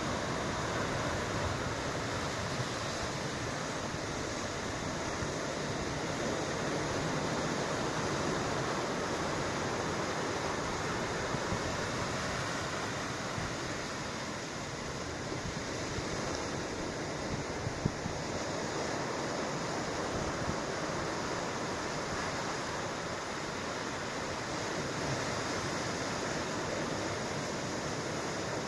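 Ocean surf washing in continuously, with wind, a steady rushing noise that swells and eases slightly.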